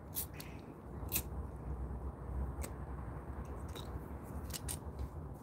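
A lighter clicked several times to relight a burnt-out hand-rolled smoke, with soft puffs as it is drawn on.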